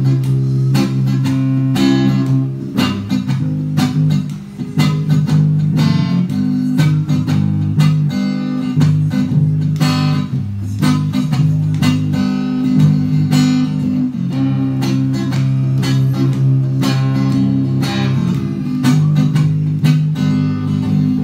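Lakewood acoustic guitar and Ibanez SDGR electric bass guitar playing together: the acoustic guitar keeps up a rhythm of quick repeated strokes over a steady, sustained bass line.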